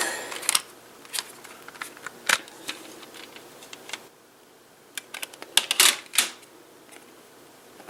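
Plastic CD jewel case being handled and opened: scattered sharp clicks and taps, with a quick cluster of clicks about five to six seconds in.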